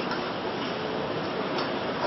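Steady hiss at a lit gas stove, with butter starting to melt in a frying pan, and a faint click about one and a half seconds in.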